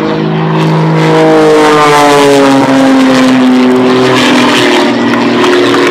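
Pitts Special aerobatic biplane's piston engine and propeller running at display power as it flies past, its note dropping steadily in pitch through the middle of the pass.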